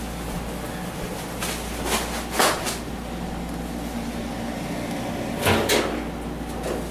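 A few short knocks and clatters, a pair about two seconds in and another pair near the end, over a steady low hum.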